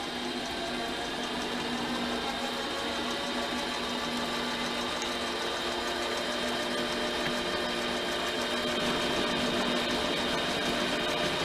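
Metal lathe running steadily during a cutting pass, its motor and gearing giving a constant hum with a few steady whining tones.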